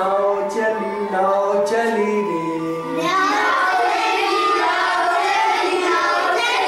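A group of children singing an action song together; about three seconds in the singing grows fuller and a little louder as more voices join.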